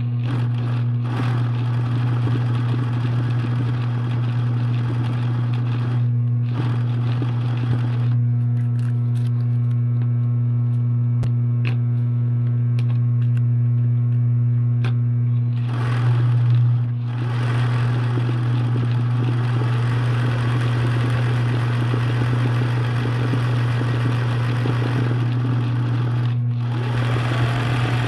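Electric sewing machine running and stitching over a steady low motor hum, with the stitching pausing briefly a few times.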